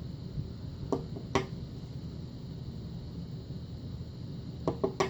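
Light sharp clicks of small metal lock parts and tools being handled on a desk: two about a second in, then three quick ones near the end, over a steady low hum.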